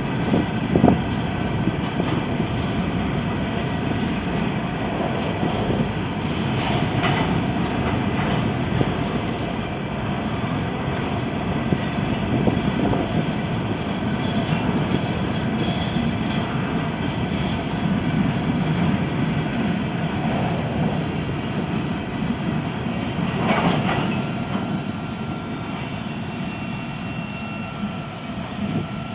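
Freight cars of a CSX manifest train, loaded open hoppers and a tank car, rolling past on the rails with a steady rumble of wheels. Sharp clanks come now and then, about a second in, around seven seconds, and near the end. Faint high-pitched wheel squeal runs underneath.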